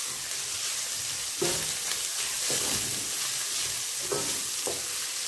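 Diced mixed vegetables sizzling as they sauté in olive oil in a kadhai, stirred with a wooden spatula that scrapes the pan and knocks against it a few times.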